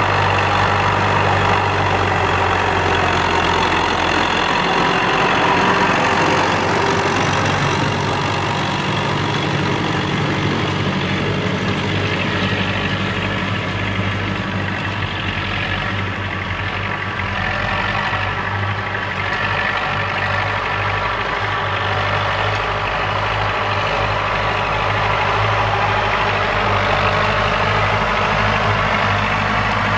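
UTB Universal 650 tractor's four-cylinder diesel engine running steadily under load as it pulls a disc harrow through tilled soil.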